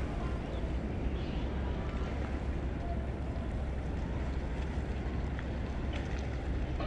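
Steady wind rumble buffeting the microphone over the wash of the sea, with a few faint ticks.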